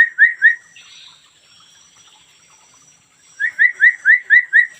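Hill myna giving quick runs of short, rising whistles, about four a second. There are three at the start, then a pause, then six more about three and a half seconds in.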